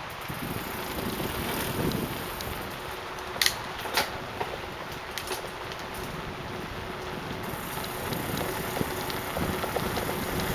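Bicycle rolling along a paved trail: a steady rush of tyre and wind noise with small rattles from the bike, and two sharp knocks about three and a half and four seconds in.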